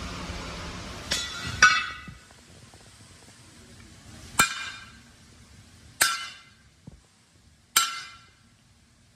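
Hammer blows on steel: five sharp strikes, each with a short metallic ring. The first two come close together about a second in, and the rest come every second and a half or so. A steady rushing machine noise dies away in the first two seconds.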